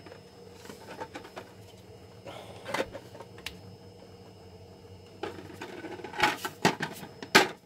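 Hollow 3D-printed PLA plastic egg shells knocking and clacking as they are handled and shut over the plastic truck inside: a few light clicks at first, then a cluster of sharper knocks in the last couple of seconds, the loudest near the end. A faint steady hum runs underneath.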